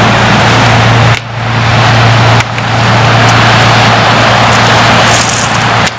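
Wind buffeting the camera microphone: a loud, steady rush with a low rumble underneath, dropping away suddenly for a moment about a second in, again a little past two seconds, and once more near the end.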